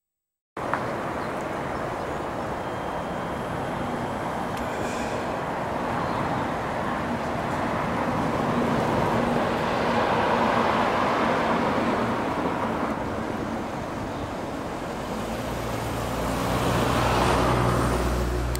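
Road traffic passing: a steady hiss of tyres and engines that cuts in about half a second in and swells twice, around the middle and near the end, as vehicles go by. A low engine hum joins over the last few seconds.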